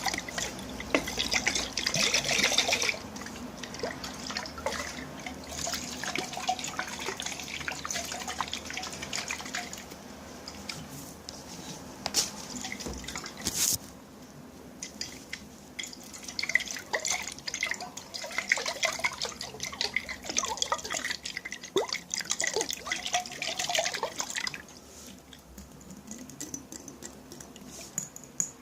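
Water dripping and splashing in a container, made close up for ASMR, as many small irregular drips and splashes. The sound is busier at the start and again from about 16 to 24 seconds in, thinner in between, with one sharp click about 14 seconds in.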